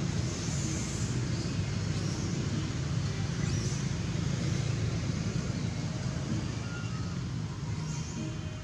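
Steady low rumble with no clear rhythm, like a motor or passing traffic, with a few faint high chirps over it.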